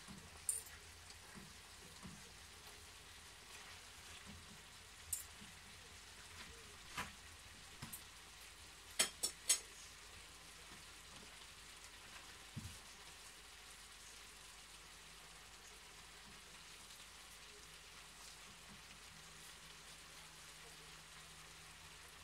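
Noodles and chicken frying faintly in a pan, a low steady sizzle. A metal fork clinks against the pan now and then in the first half, with three quick taps about nine seconds in.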